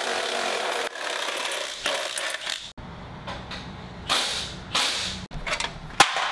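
Ratchet wrench clicking and rattling as engine bolts are worked loose, in several separate stretches, with a sharp metallic click near the end.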